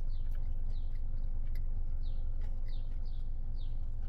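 A small bird chirping, a run of short, high chirps that each fall in pitch, about six in four seconds, over a steady low rumble and a few faint clicks.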